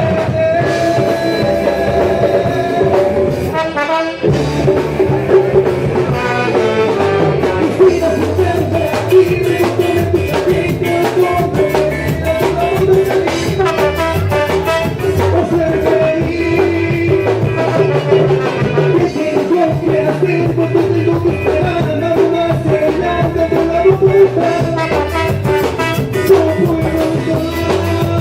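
Band music with a steady drum-kit beat, bass and sustained melody lines.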